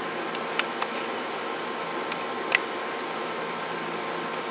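Stryker SR-955 10-meter radio's receiver hissing with static, a faint steady test tone barely showing through the noise. The weak test signal is near the receiver's sensitivity threshold, where tone and noise just begin to separate. A few short sharp clicks in the first three seconds.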